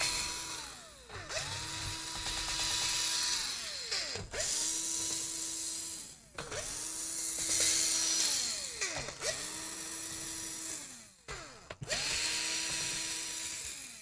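Cordless drill-driver backing out the laptop's bottom-cover screws in about six short runs. Each run is a motor whine that rises in pitch as it spins up, holds steady, then winds down.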